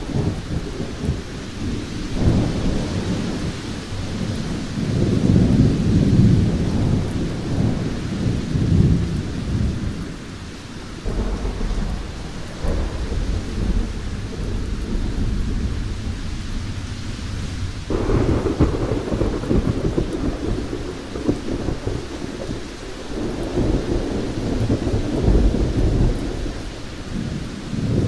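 Thunderstorm: thunder rumbling again and again over steady rain, with new peals breaking in about two seconds in, around the middle, and about two-thirds of the way through.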